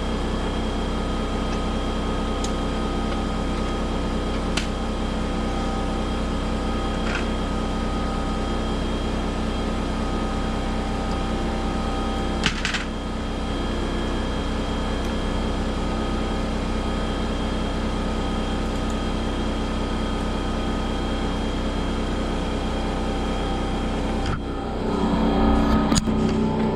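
Plasma cutter running on 120 volts, a steady hum with several fixed tones and a few sharp clicks, growing louder and rougher near the end.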